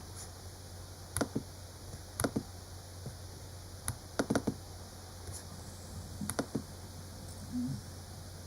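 Snoring heard as short clicking snorts in pairs and small clusters every second or two, with a brief low rumbling snore near the end, over a steady low hum.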